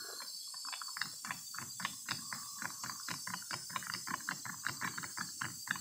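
Car seat belt buckle mechanism being pushed over and over, giving a fast run of small clicks, about seven or eight a second. It is being worked to spread freshly sprayed penetrating oil into the sticking latch.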